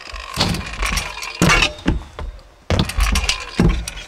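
Stunt scooter rolling on skatepark concrete, its wheels and deck giving several sharp clacks and knocks as it hits the ground and a box ledge, with a short lull about two and a half seconds in before a loud knock.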